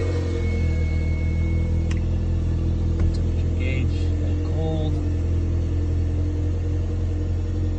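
1991 Toyota MR2 Turbo's turbocharged 2.0-litre four-cylinder (3S-GTE) idling steadily at a cold-start fast idle of about 1,200 rpm, seconds after firing up, heard from inside the cabin.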